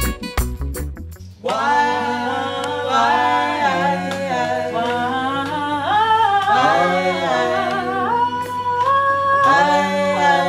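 Reggae-style music with a heavy bass beat cuts off about a second in. Several voices then sing a cappella into microphones, with no instruments, over a steady low hum.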